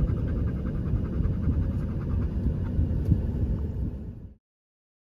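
Steady low engine rumble of heavy vehicles on the road as big combines go by. It cuts off abruptly a little over four seconds in.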